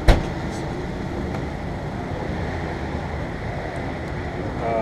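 A sharp knock right at the start, then steady, even background noise, with a voice near the end.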